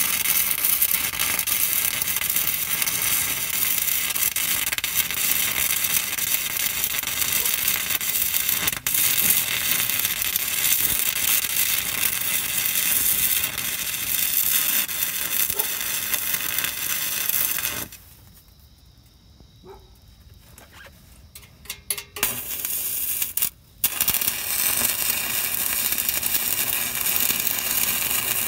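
Stick welding arc crackling and sizzling steadily as a flux-coated rod burns against the muffler pipe. About two-thirds of the way through the arc stops, a few short crackles mark it being struck again, and then the steady crackle picks up once more.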